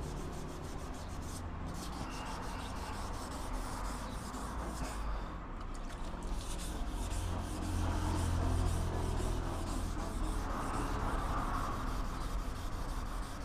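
Wet sandpaper rubbed back and forth by hand over a primer-surfaced car door panel: a steady scratchy rubbing that follows the strokes, sanding off the guide coat to level out sanding marks. A low steady hum runs underneath.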